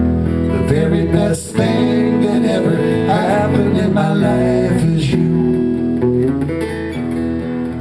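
Live electric guitar and electric bass playing the song's instrumental close, with held notes and a short break about a second and a half in.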